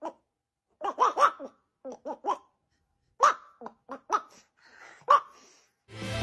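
A person laughing in short bursts, several quick laughs in three runs with pauses between.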